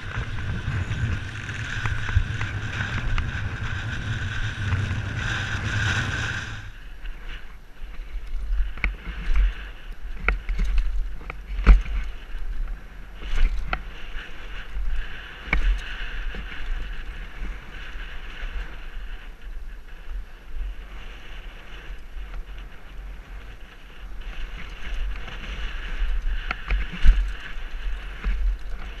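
Helmet-camera audio of a mountain bike riding down a rough gravel and dirt trail: wind rushing over the microphone, tyres rumbling on the ground, and the bike's chain and frame rattling and knocking over bumps. After about six seconds the wind rush stops abruptly, leaving a low rumble broken by frequent sharp knocks and clicks.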